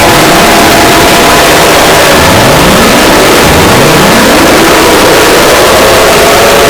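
Mock emergency alert system alarm, deliberately amplified to the point of heavy distortion: a constant harsh noise with steady alarm tones, and two rising siren sweeps in the middle.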